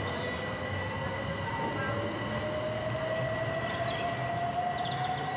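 GWR Class 387 Electrostar electric multiple unit pulling away, its traction motors giving a whine that rises slowly in pitch as it gathers speed, over a steady high tone and running noise.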